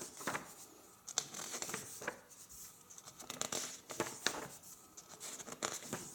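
Fingers handling the glossy pages of a large hardcover book: soft paper rustling with a handful of short, sharp crackles as a page edge is lifted.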